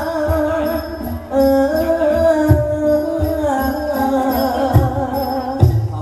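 Thai likay ensemble music: a sliding, held melody line over a few drum strokes.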